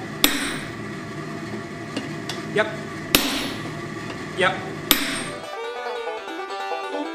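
Sledgehammer blows on a handled top tool held against red-hot steel on an anvil: three heavy ringing strikes and two lighter ones. About three-quarters of the way through, the hammering stops and banjo music begins.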